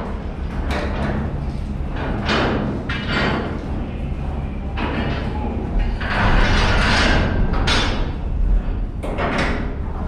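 Steel container lashing bars clanking and scraping against the container stack and its fittings as they are hung, a string of irregular metallic knocks over a steady low hum.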